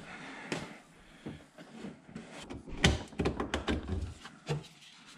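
Clicks and knocks of hands working in a car's open trunk. One sharp knock comes about three seconds in, followed by a quick run of small clicks.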